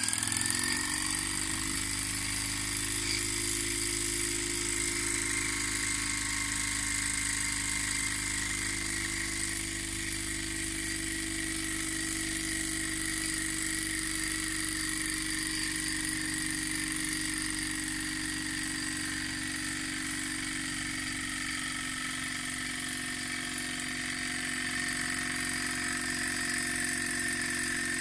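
Mamod Centurion TE1313C model steam traction engine, gas-fired with a piston-valve cylinder, running fast and steady while it belt-drives a small generator that has been switched off. Its pitch rises and levels out about a second in as the electrical load comes off, then holds as a steady hum with a high whine.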